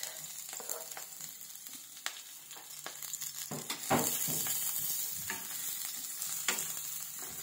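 Minced garlic sizzling in hot oil in a nonstick frying pan, a steady hiss, as it is sautéed. A wooden spatula scrapes and taps against the pan a few times while stirring, the loudest stroke about four seconds in.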